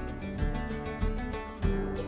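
Background music with plucked guitar-like notes and a steady beat.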